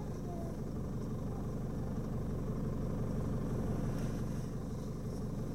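A four-wheel-drive vehicle's engine running steadily, a low even rumble with no revving.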